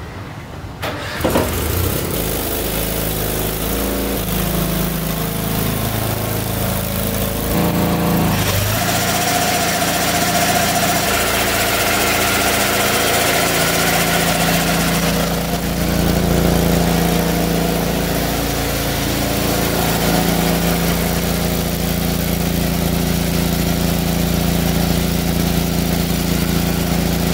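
A 1976 Case 446 garden tractor's engine starts about a second in and then runs, its pitch shifting for the first several seconds before settling to a steady run, as the newly fitted L84 snow caster is test-run.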